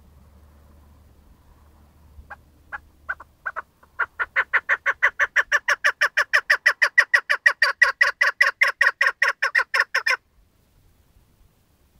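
Chukar partridge calling: a few spaced clucks that speed up into a fast, even run of about six short chuck notes a second, which stops abruptly.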